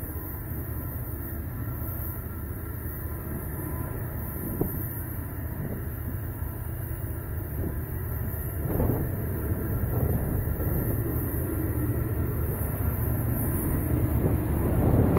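Diesel freight locomotives hauling a double-stack container train as they approach: a steady low engine rumble that swells about halfway through and keeps growing louder as they draw near.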